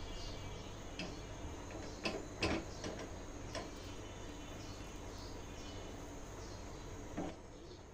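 Silicone spatula stirring and scraping sugar as it melts into caramel in a nonstick pan, with a few sharp knocks of the spatula on the pan, the loudest two just after two seconds in and another near the end.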